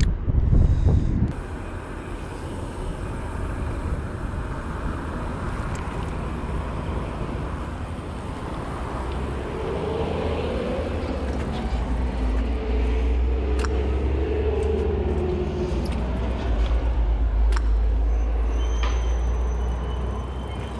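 Wind buffeting the microphone, then a roadside traffic passage: a motor vehicle draws near and goes by, its engine and tyre noise rising and falling through the middle, over a low rumble that builds toward the end.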